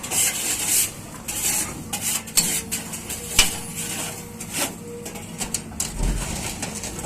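Excavator bucket scraping and scooping loose shells out of a steel truck bed: repeated gritty rasping with sharp clattering knocks.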